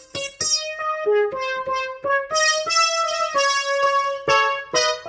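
Yamaha PSR-S970 arranger keyboard playing a melody of separate notes on one of its built-in voice presets, each note starting sharply and ringing with many overtones.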